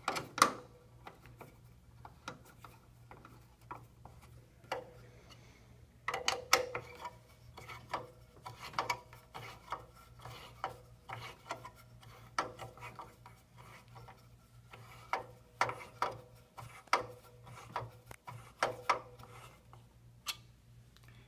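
A 3/16 ball-end hex driver turning a screw in a metal antenna clamp as it is tightened: scattered light metal clicks and scraping, in spells with short pauses.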